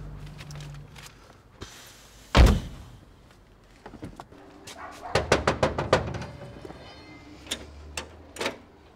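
A car door shuts with one heavy thump, then a quick run of knocks on a metal door, with a few single knocks near the end.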